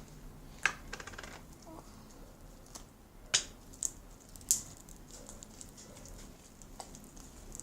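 Clear glue slime being kneaded by hand, giving a few sharp sticky clicks and pops spread over several seconds, with a brief crackle near the start.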